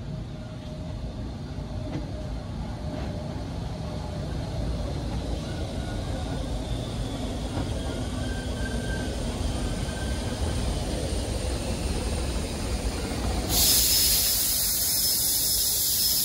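Electric rack-railway train of the Bavarian Zugspitze railway running with a steady low rumble and a faint whine, slowly growing louder. Near the end a loud hiss cuts in suddenly.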